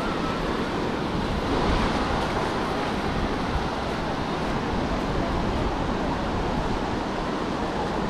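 Ocean surf washing onto the beach in a steady rush that swells slightly about two seconds in, with wind buffeting the microphone.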